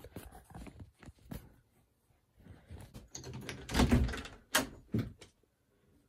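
Handling noise from a camera being picked up and moved: irregular bumps, knocks and rustling, the loudest bump about four seconds in and two sharp knocks just after it.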